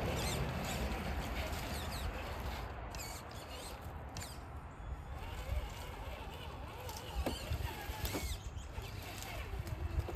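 Traxxas TRX-4 RC crawler crawling over dry leaves, roots and twigs, giving scattered small crackles and rustles over a steady low rumble.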